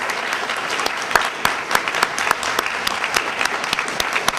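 A small group of people applauding, with many overlapping hand claps keeping a steady level.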